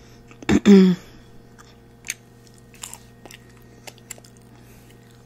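Close-miked eating sounds: a short hum from the eater about half a second in, then faint, scattered wet mouth clicks and smacks of chewing, with fingers licked near the end.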